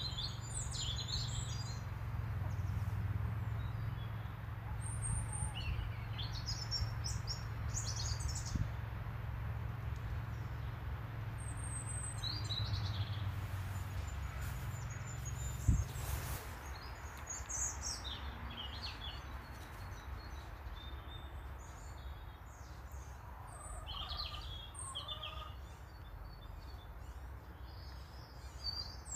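Several songbirds singing, with short high chirps and trills scattered throughout. A low steady rumble sits underneath for the first half and drops away after a single sharp knock about sixteen seconds in.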